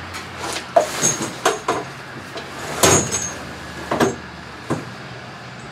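Clattering knocks and scrapes of a boat blind panel being handled and leaned against the shop wall: about seven separate knocks, the loudest about three seconds in with a brief metallic ring.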